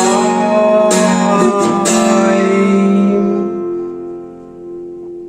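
Guitar playing the closing chords of the song: three strums about a second apart, then the last chord rings out and fades away.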